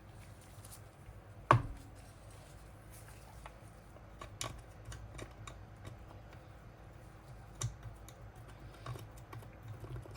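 Scattered light clicks and taps of hand tools and small bolts being handled while unbolting a chainsaw's anti-vibration mounts, with one sharper knock about a second and a half in.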